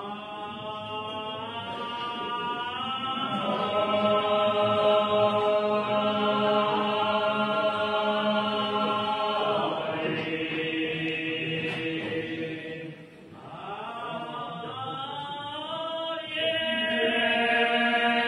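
Voices singing a slow religious chant in long held notes. The singing breaks off briefly about two-thirds of the way through, then resumes.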